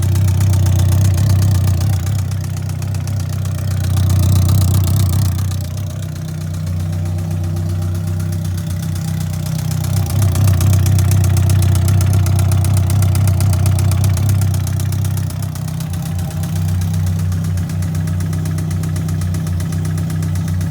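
2003 Yamaha R1's inline four-cylinder engine running near idle with a loud knocking from the top of the engine. The sound swells briefly about four seconds in and again for a few seconds from about ten seconds. The knock grows louder with throttle, which the owner takes as a sign that the engine needs a rebuild.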